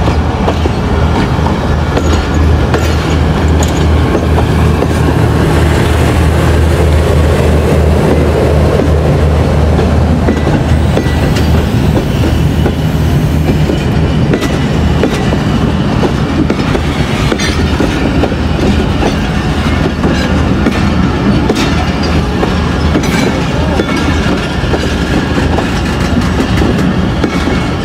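Passenger coaches of an express train rolling past close by: a loud, steady rumble of wheels on the rails with repeated clacks as the wheelsets cross the rail joints.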